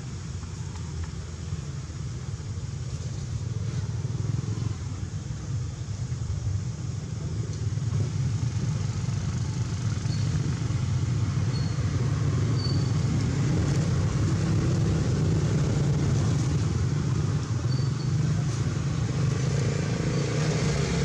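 Low, steady rumble of a motor vehicle engine running nearby, growing louder over the first several seconds and then holding, with a few faint short high chirps in the middle.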